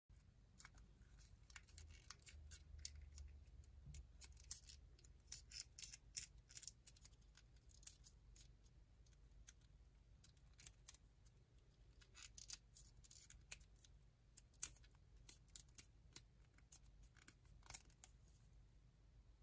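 Folded origami paper strip crackling and crinkling as it is creased between the fingers: many faint, irregular small crackles and snaps, a few sharper ones near the end.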